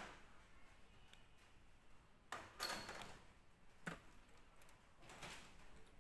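Faint handling noises of a hand working at the wiring and a small circuit board inside an opened LCD TV: a brief rustle a little over two seconds in, the loudest sound, a sharp click about a second later, and a softer rustle near the end.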